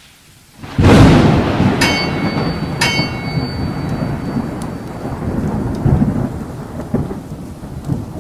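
Thunderstorm sound effect: a loud thunderclap about a second in that rolls into a long fading rumble over steady rain. Two sharp, ringing metallic strikes come about a second apart, near two and three seconds in.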